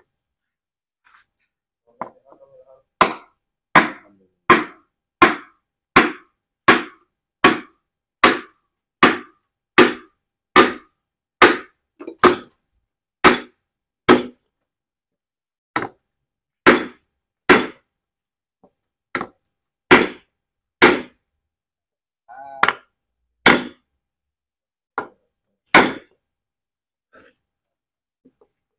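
Hammer blows driving a cylinder liner into a bare Isuzu Panther engine block through a driver block set on top of the liner. The worn liner has been turned over and is being pressed back into its bore. The blows come steadily, a little over one a second, then more sparsely after a short pause.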